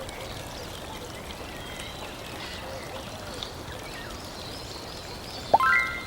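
A steady hissing background with faint chirp-like squiggles. Near the end comes a short cartoon-style sound effect, a quick rising swoop that lands on a held ringing tone for about half a second.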